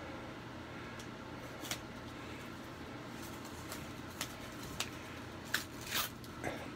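Folding knife cutting open a cardboard coin mailer: faint scraping and rustling of cardboard with a few sharp clicks, more of them in the second half.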